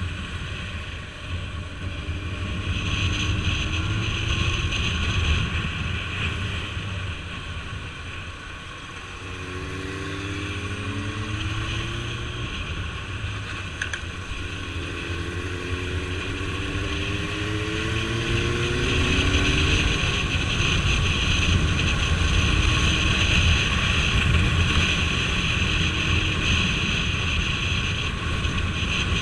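Motorcycle engine running on the move under a constant rush of wind and road noise. Its pitch rises several times as it accelerates: a couple of seconds in, again around ten seconds, and over a longer stretch a little after fifteen seconds.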